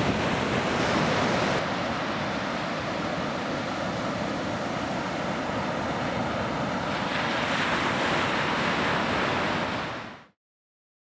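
Ocean surf breaking and washing, a steady rush of water noise that fades out to silence about ten seconds in.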